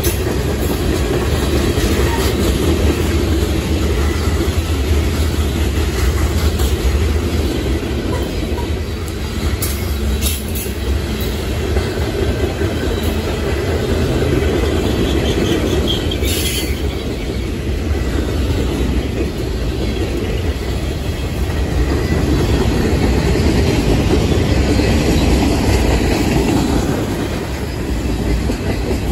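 Freight train cars (covered hoppers and tank cars) rolling past close by: a steady low rumble with the clickety-clack of wheels over rail joints. A couple of brief sharp high sounds cut through, about ten seconds in and again around sixteen seconds in.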